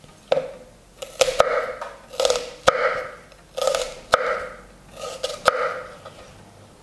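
A chef's knife cutting through a peeled onion on a wooden cutting board: several crisp, crunching cuts about a second apart, each with a sharp knock as the blade meets the board.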